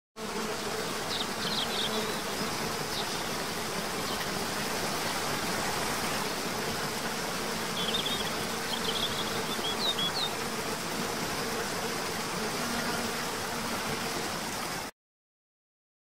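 Nature ambience: a steady rushing of water under a low buzzing hum like a bee or fly, with a few short high bird chirps about a second in and again around eight to ten seconds in. It cuts off suddenly near the end.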